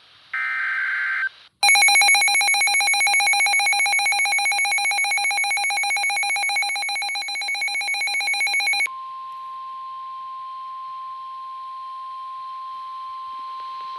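NOAA Weather Radio alert tones: a one-second burst of digital SAME header data, then a rapidly pulsing electronic alarm for about seven seconds, then the steady single-pitch 1050 Hz weather radio warning tone that signals a warning is about to be read.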